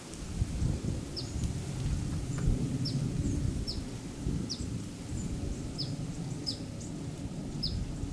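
A bird giving a series of short, high call notes, each sweeping downward in pitch, about seven of them at intervals of roughly a second. Under them runs a steady low rumble.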